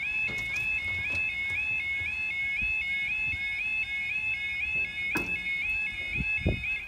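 Level crossing yodel alarm warbling about three times a second while the barriers lower; two knocks near the end as the barriers come down, then the alarm cuts off suddenly once they are fully lowered.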